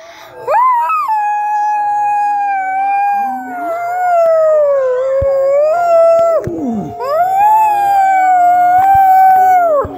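Dog howling: a long, wavering howl that sags in pitch in the middle and falls away at the end, followed after a short break by a second long howl that also drops off at its end.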